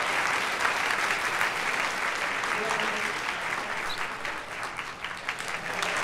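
Audience applauding, a dense run of clapping that thins briefly near the end and then picks up again.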